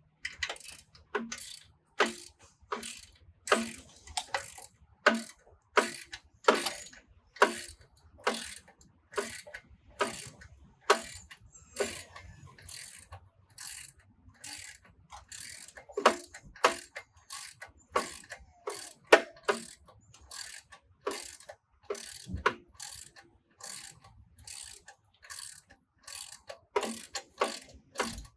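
Ratchet wrench with an 18mm socket clicking in short, repeated strokes as it undoes the bolts holding the log splitter's guard.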